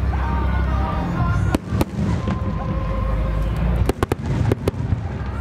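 Aerial firework shells bursting overhead, heard as sharp bangs over a steady low rumble. There are two bangs about a second and a half in, then a quick run of about five near four seconds in.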